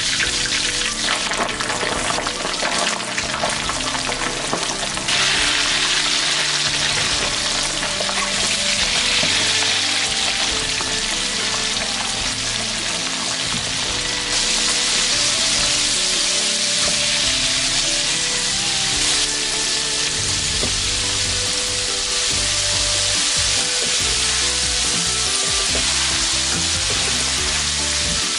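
Chicken wings deep-frying in hot oil in a wok: a loud, steady sizzle that grows louder about five seconds in.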